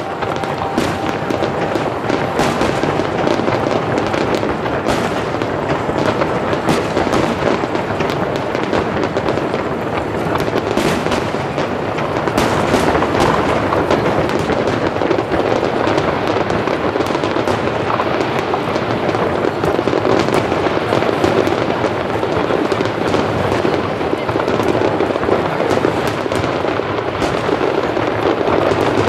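Aerial firework shells bursting in rapid succession: a dense, unbroken barrage of bangs and crackle.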